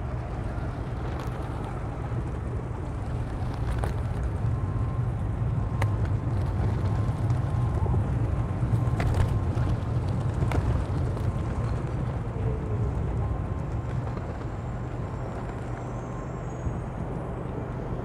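Low, steady outdoor rumble that swells in the middle and eases toward the end, with a few faint sharp clicks.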